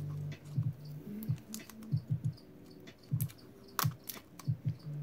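Small clear plastic deli cup being turned and gripped in the hands: irregular sharp clicks and taps of fingers on the plastic, with low handling rumble between them.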